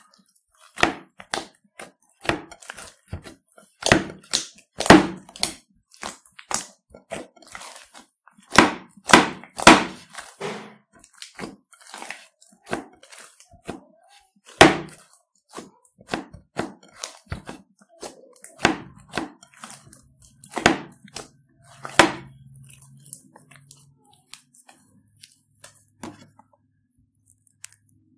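Clear slime loaded with foam beads and Play-Doh being kneaded and squeezed by hand: irregular wet squelches and crackly pops, some much louder than others.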